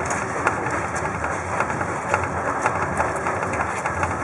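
Steady running noise of a passenger train heard from inside a sleeper compartment, with scattered small clicks over it.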